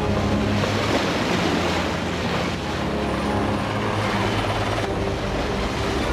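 Steady, loud rushing noise of an aircraft engine, with a low hum underneath.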